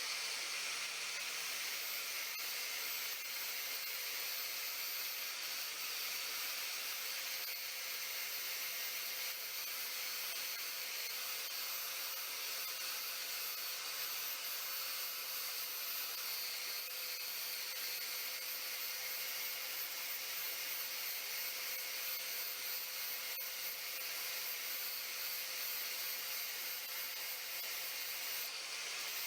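A 4.5-inch angle grinder with a flap disc running steadily, taking a light cut along the edge of a lawn mower blade to smooth out nicks and restore its sharpness. The pitch and level hold steady throughout.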